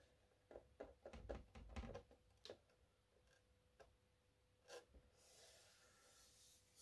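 Near silence, with faint scattered light ticks and rustles of fingertips pressing and smoothing thin lining tape onto a model aircraft cowl. Most come in the first two and a half seconds, and a faint soft hiss follows near the end.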